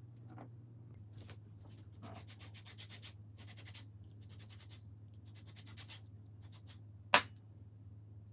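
Lemon rubbed in quick strokes across a fine rasp grater, zesting it: several short runs of rapid rasping strokes. Near the end a single sharp tap, the loudest sound.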